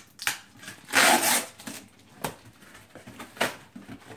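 Cardboard box being ripped open by hand: a loud rip about a second in, then a few short sharp tears.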